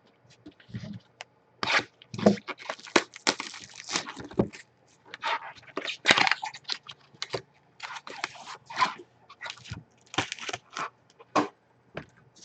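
Trading card packs being torn open and their wrappers crinkled: a run of irregular sharp rips and crackles with short pauses between them.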